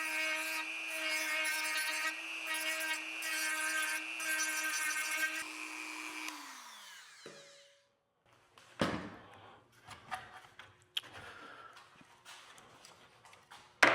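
Dremel rotary tool whining at high speed as it grinds and smooths the cut edges of a car grille, its steady pitch dipping briefly as it bites. About six seconds in it is switched off and winds down in a falling whine, followed by a few knocks and scraping as the work is handled.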